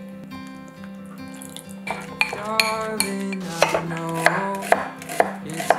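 Kitchen knife slicing an onion on a wooden cutting board, a string of sharp knocks about two a second starting about two seconds in, over light background music. Before that, only soft sounds from a glass mixing bowl.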